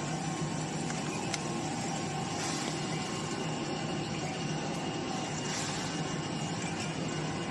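Steady mechanical hum of a running vertical form-fill-seal packing machine, with one faint click about a second and a half in.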